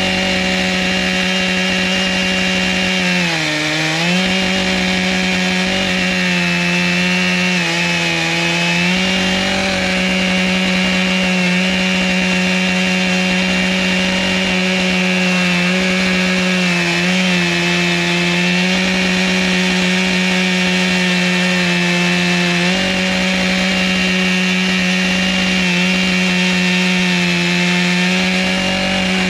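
Chainsaw in an Alaskan mill running at full throttle as it rips lengthwise through a butternut log, a steady high engine note that sags briefly under load a few times and recovers.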